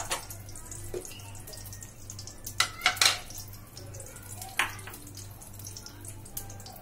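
Whole spices frying in hot oil in a kadai: a steady sizzle and crackle, with a few sharp pops a little before halfway and one more about two-thirds through.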